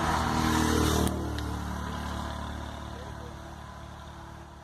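A motor vehicle passing on the road: its engine and tyre noise are loudest in the first second, then fade steadily as it moves away.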